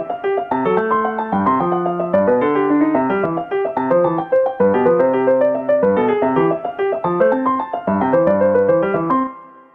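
Solo piano music of quick, rapidly changing notes, played back with a score-notation app's piano sound. The piece ends about nine seconds in, its last chord fading out.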